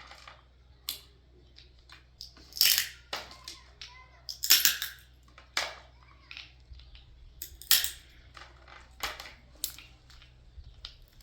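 Irregular sharp knocks and clatter of hard objects being handled and set down, about eight distinct hits spread unevenly, with a faint steady hum underneath.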